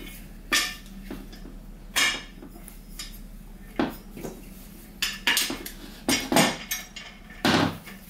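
Office chair casters being pushed into the sockets of the chair's star base and handled against it, giving a series of sharp clacks and knocks about every second or so.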